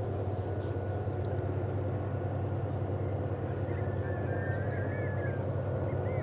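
Approaching coal train's GE diesel locomotive: a steady low rumble with a high, even whine. From about four seconds in, coyotes yip and howl in short wavering calls.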